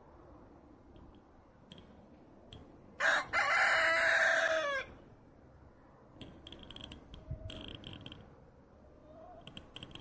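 A rooster crows once, loudly: one long call of nearly two seconds that drops in pitch at the end. Short, sharp chirps or clicks follow a few seconds later.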